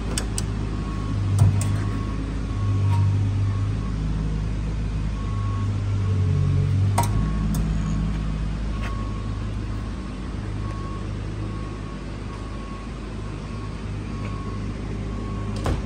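Steady low machinery hum, with a faint high tone that comes and goes and a few sharp knocks, the loudest about a second and a half in and another about seven seconds in.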